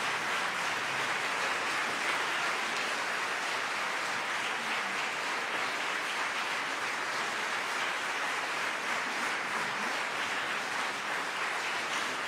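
Large audience applauding steadily in a big concert hall: the even clatter of many hands clapping at once.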